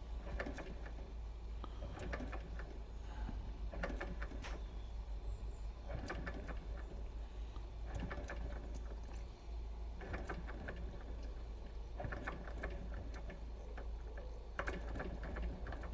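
Small live-steam model boiler heating under a gas burner as steam comes up, before the engine runs: a steady low hum and hiss, with short clusters of clicks and crackles about every two seconds.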